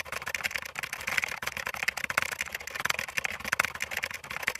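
Keyboard-typing sound effect: a fast, unbroken run of key clicks.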